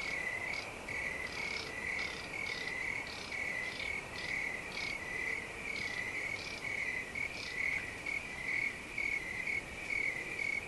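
Crickets chirping: a steady, even run of chirps about two a second, with fainter higher chirps from other insects mixed in.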